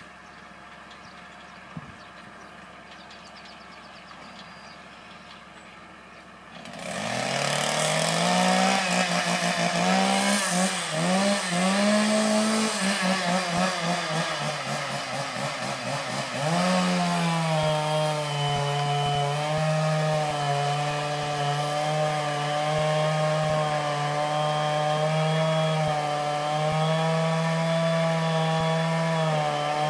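Two-stroke chainsaw cutting into a grand fir: low background at first, then the saw comes in about a third of the way through, revving up and down, and from about halfway runs at a steady high pitch under load.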